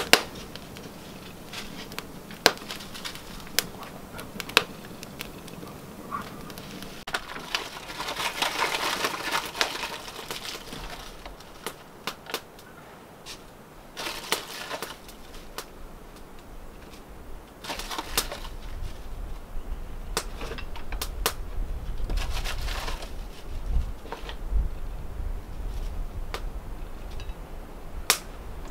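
Bag of ground coffee crinkling and rustling in bursts as it is opened and handled, among scattered sharp clicks.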